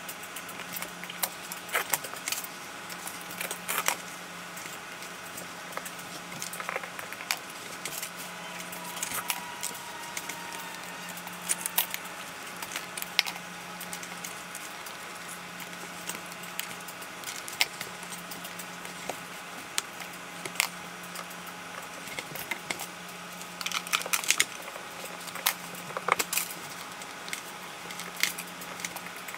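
Scattered light clicks and clinks of marble subway tiles and plastic tile spacers being set by hand, over a steady low hum, with a quick cluster of clicks near the end.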